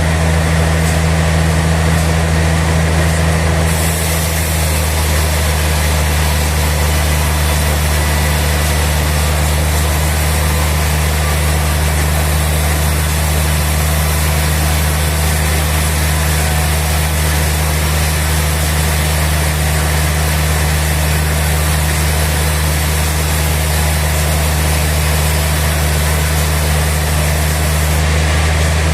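Sawmill machinery running with a steady, loud, low hum. A brighter hiss joins about four seconds in and stops near the end.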